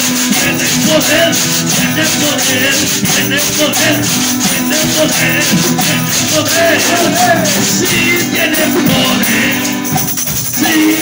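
Lively live worship music: a man singing a joyful chorus into a microphone over strummed acoustic guitar, with a shaker keeping a steady rhythm.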